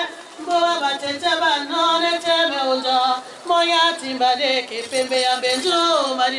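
A woman singing unaccompanied into a handheld microphone, a chant-like melody of long held notes with vibrato and gliding turns between them, broken by brief breaths.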